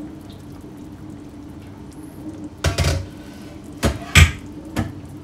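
A few sharp knocks and clanks of cookware, first about three seconds in and then a quick run of three about a second later, the third of these the loudest, over a steady low hum.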